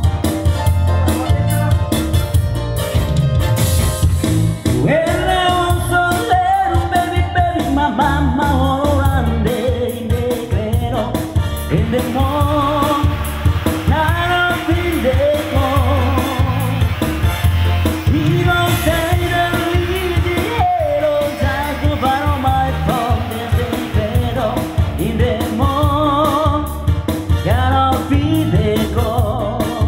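Electronic arranger keyboard played live with a steady backing beat, and a man singing into a microphone over it from about five seconds in.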